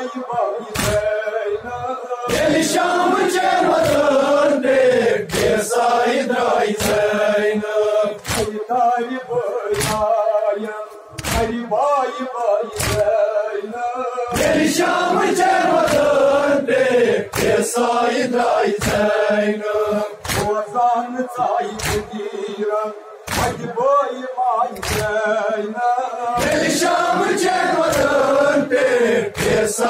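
A crowd of men chanting a nowha, a Shia mourning lament, in unison, with sharp slaps of chest-beating (matam) keeping time about once a second.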